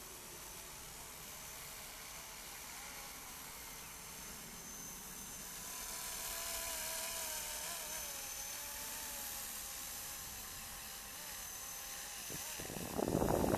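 Electric 500-size RC helicopter flying: a thin motor whine that wavers in pitch over a steady rotor hiss, swelling about six seconds in. Near the end a much louder rushing noise cuts in.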